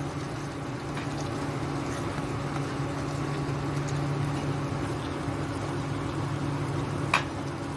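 A spatula stirring a watery curry of prawns, potatoes and cluster beans in a nonstick kadai, the liquid sloshing, over a steady low hum. A single sharp click about seven seconds in.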